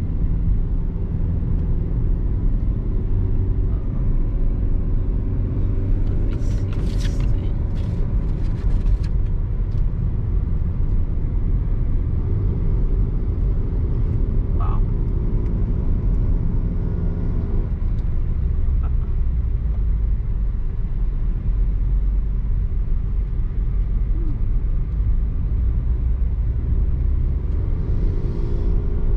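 A car being driven: steady low road and engine rumble, with the engine's hum coming and going as it pulls, and a short run of sharp clicks about six to nine seconds in.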